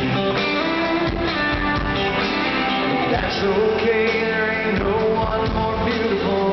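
Live country band playing in an arena, guitars to the fore, heard loud through the PA from within the crowd.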